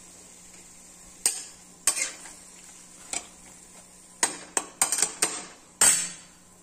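A steel spoon stirring diced luffa gourd in a steel kadhai, knocking and scraping against the pan in about ten sharp strikes. They come in a quicker run in the second half, and the loudest is just before the end.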